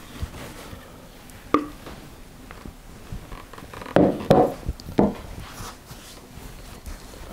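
A knife knocking inside a plastic food processor bowl as pastry crumbs are scraped out, then a cluster of three or four knocks about four to five seconds in as the bowl and knife are set down on a wooden worktop.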